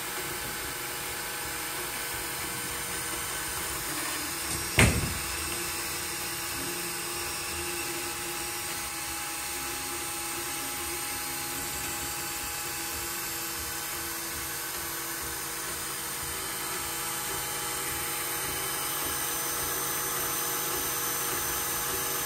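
Anycubic i3 Mega 3D printer at work on a first layer: a steady whir of its cooling fans with the whine of the stepper motors driving the print head and bed. A single sharp click comes about five seconds in.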